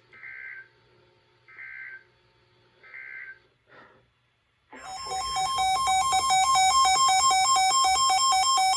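NOAA Weather Radio end-of-message data code: three short warbling bursts about a second and a half apart, marking the close of a warning broadcast. About five seconds in, a weather alert radio's loud, rapidly pulsing electronic alarm starts and keeps sounding, the receiver's alert for the next warning.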